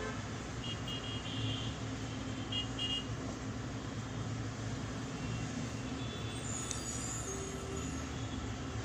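Steady rumble of background road traffic, with a few short high-pitched beeps, like distant horn toots, about a second in and again near three seconds.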